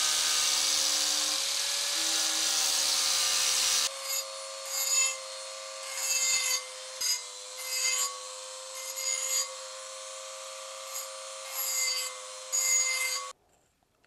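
Angle grinder running with its disc against the edge of a steel plate, a steady grind with a motor whine. About four seconds in it gives way to a small rotary tool with a pink grinding stone, whining steadily with about ten short bursts of grinding as the stone touches the steel edge, until it stops abruptly near the end.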